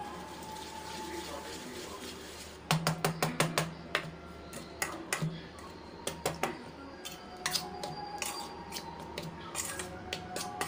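Wire whisk clinking and scraping against a stainless steel bowl while mixing dry flour and spices. After a quiet start, a quick run of ticks comes a few seconds in, then irregular clinks continue.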